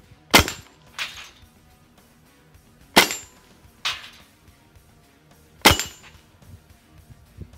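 Hatsan Blitz .25 PCP air rifle firing three single shots in semi-automatic, about two and a half seconds apart, each a sharp crack. Each shot is followed less than a second later by a fainter clang of the pellet striking a steel knock-down plate.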